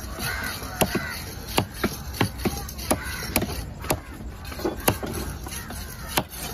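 Knife blade knocking on a wooden chopping block as fish flesh is sliced and chopped into chunks: a run of sharp, irregular knocks, about two or three a second.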